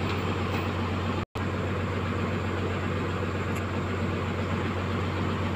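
Cat 320 hydraulic excavator's diesel engine running steadily with an even low hum. The sound cuts out completely for a moment just over a second in.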